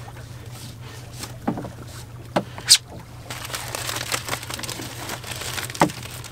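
Handling of a rope and a mesh onion sack holding frozen chum: a few sharp knocks and clicks, the sharpest nearly three seconds in, then steady rustling from a little past three seconds in, over a steady low hum.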